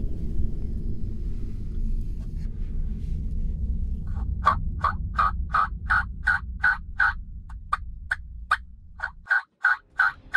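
A long, evenly spaced run of wild turkey yelps, about three a second, begins about four seconds in over a low rumble of wind.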